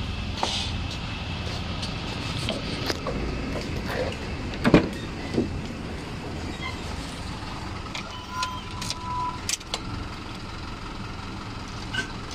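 Knocks and clicks of a car door being handled and someone getting into the driver's seat, over a steady low hum. The loudest knock comes a little under five seconds in.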